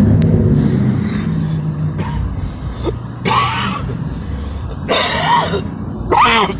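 A car engine idling with a steady low hum, broken by three short vocal sounds like coughs or throat clearing about three, five and six seconds in.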